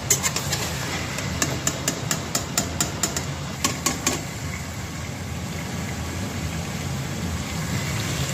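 A metal slotted spoon knocking and scraping against a metal pot in a rapid series of sharp taps over the first four seconds, as fried chicken pieces are lifted out of hot oil. Under it, the oil sizzles steadily with a low rumble.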